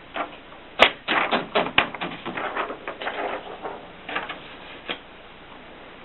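Erika 5 portable typewriter being typed on: a quick run of key strikes clacking against the platen, starting with one sharp strike about a second in and tailing off with a few scattered strikes near the end.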